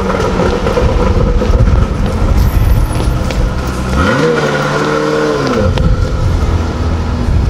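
Ferrari F40's twin-turbo V8 running as the car pulls away, its note climbing and dropping back once about four seconds in, over a heavy low rumble.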